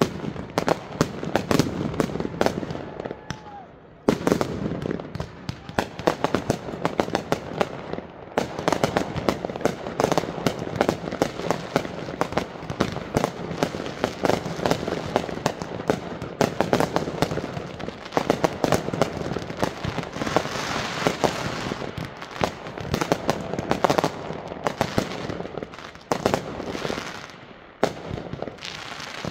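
Consumer fireworks going off in a dense barrage: rapid launches and bursting shells, one pop and bang after another, with a few brief lulls.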